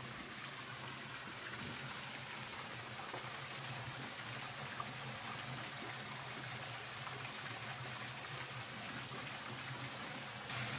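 Small forest waterfall and rocky creek: water running and splashing steadily.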